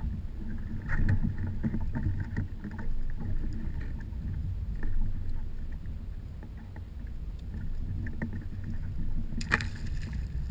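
Low wind rumble on the microphone, with scattered clicks and knocks from gear being handled on the kayak. The sharpest knock comes near the end.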